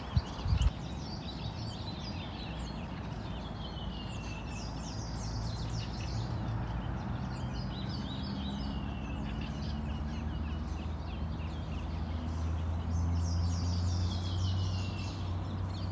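A songbird singing, repeating a fast descending trill three times among other high chirps, over a low steady hum that grows stronger in the second half.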